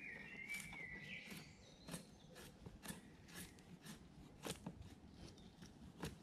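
Wood being drawn against a bushcraft knife blade wedged in a green stick, shaving off strips: a dozen or so short, quiet scraping cuts, irregularly spaced. A bird calls briefly at the start.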